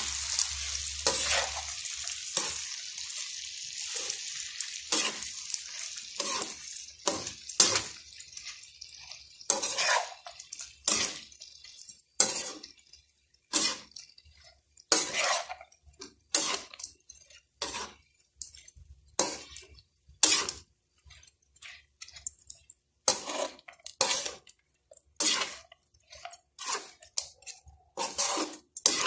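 Spatula stirring and tossing fried potato, anchovies and onion in a non-stick wok: repeated scrapes and clatters against the pan, about one a second. A sizzle from the hot oil dies away over the first several seconds, since the heat has been turned off.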